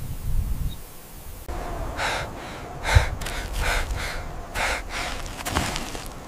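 Low wind rumble, then from about two seconds in a person breathing in a run of short, sharp sniffs, with a low thump about three seconds in.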